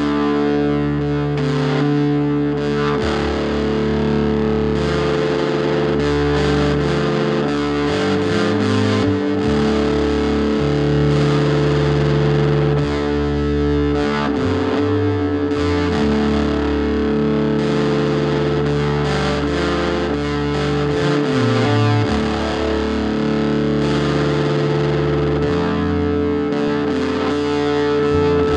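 Music: distorted, effects-laden guitar over a single note held steadily throughout, with slowly changing bass notes beneath.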